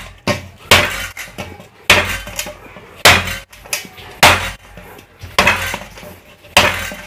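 A ball of kneaded maida dough for bhature slammed again and again into a stainless steel bowl: about six heavy slams a little over a second apart, with lighter knocks between. The repeated slamming is the kneading step that makes the dough soft so the bhature puff.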